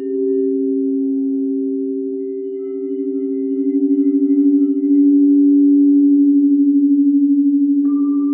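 Singing bowls sounding a sustained, steadily wavering low hum that swells partway through. Near the end another bowl is struck and rings over it.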